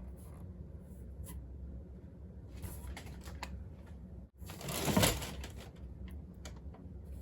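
Diecast cars in their card-and-plastic packages being handled and turned over: faint clicks and crinkles over a low room hum, with a short, louder rustle about five seconds in.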